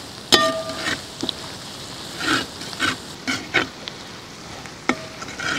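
Sliced onions sizzling in hot oil in a large metal uruli while a perforated steel ladle stirs and scrapes them across the pan. A sharp ringing clink of the ladle on the pan comes about a third of a second in, followed by several short scraping strokes.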